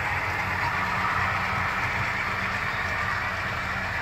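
Model railroad freight cars rolling past on the layout track, a steady running noise of metal wheels on rail.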